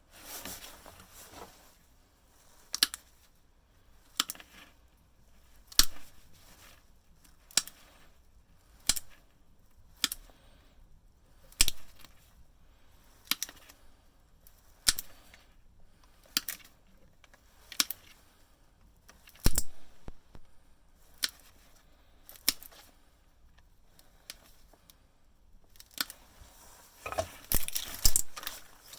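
A run of sharp snapping clicks, one about every second and a half, typical of hand cutters snipping through parts of a stripped bread-maker motor. Bursts of rustling handling noise come just after the start and again near the end.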